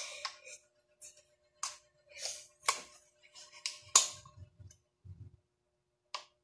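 Kitchen knife chopping water spinach (kangkong) stems on a cutting board: a series of short, crisp cuts and taps at an irregular pace, about nine in all, with a few soft low knocks a little past the middle.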